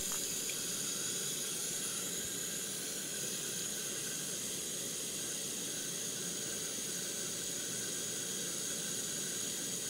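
Garden hose spraying a steady stream of water over a vinegar-soaked Honda CB160 engine, rinsing residue out of the crankcase. The water runs off the case and splashes into a plastic tub below, a continuous even hiss.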